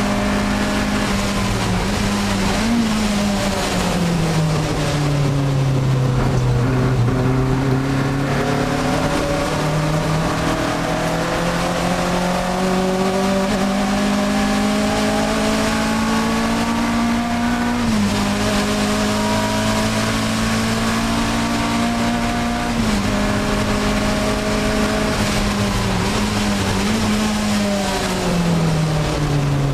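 Alfa Romeo 1750 GTV's twin-cam four-cylinder engine at racing speed, heard from inside the cabin. Revs fall with a quick blip as it brakes and downshifts, then climb steadily for a long stretch. Revs drop sharply at two upshifts about two-thirds of the way through, and blip and fall again near the end.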